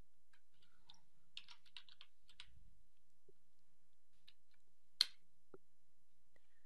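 Faint computer keyboard typing: a quick run of keystrokes about one and a half seconds in, a few more around four seconds, and one sharper, louder key click about five seconds in.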